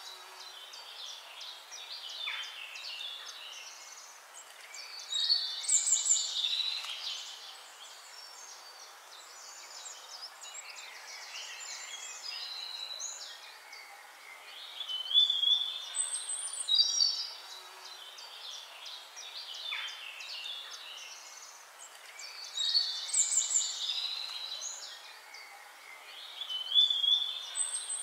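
Songbirds chirping and singing in short repeated phrases that come in louder clusters every several seconds, over a steady hiss.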